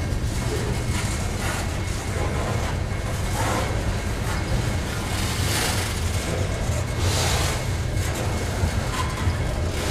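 Freight cars of a passing manifest train, covered hoppers and an autorack, rolling by close at hand: a steady low rumble of steel wheels on rail, with occasional brighter rattling surges.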